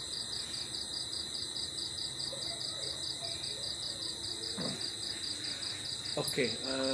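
Crickets chirping in a steady, high, fast-pulsing trill. A man's voice is heard briefly near the end.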